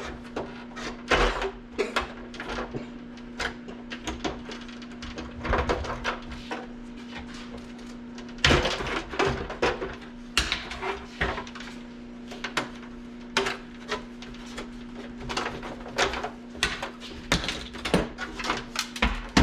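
Irregular clicks, knocks and clatter of hand tools working metal parts off an old dehumidifier, with a steady low hum underneath.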